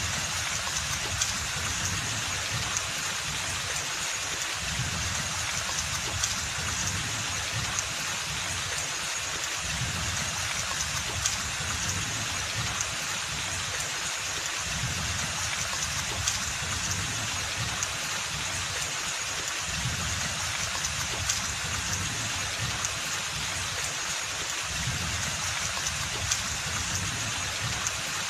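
Steady rain falling in a forest, an even hiss with a low rumble underneath and occasional louder single drops.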